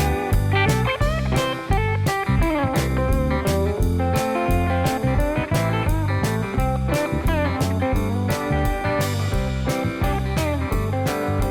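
Background music: blues-style guitar over a steady beat, with sliding guitar notes.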